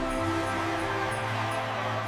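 Background music: steady held tones over a constant low hum.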